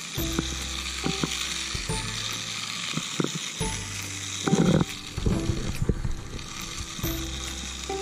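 Tiny remote-control toy car's electric motor and gears whirring in short on-off stretches as it is driven, over a steady hiss, with scattered small clicks and one louder scuffing burst about halfway through.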